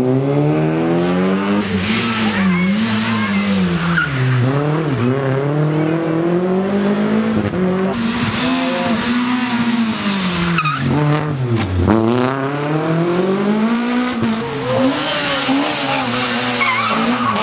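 Rally car engines driven hard, the pitch climbing as they accelerate and dropping sharply on downshifts, over and over as the cars take a hairpin. There are short tyre squeals.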